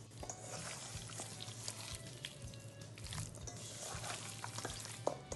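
Hands kneading bone-in chicken pieces with ground pepper, turmeric and salt in a stainless steel bowl: soft wet squishing of the meat with small clicks and taps against the bowl, over a steady low hum.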